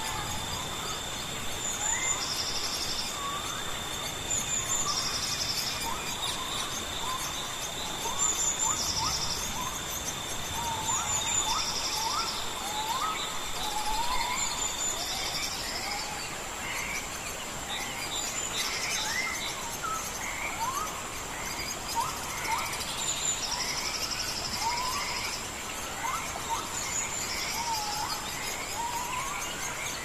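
Wild birds calling with many short rising chirps, over insects: a buzzing trill that comes back every few seconds and a steady high-pitched whine that stops about halfway through, all on an even background hiss.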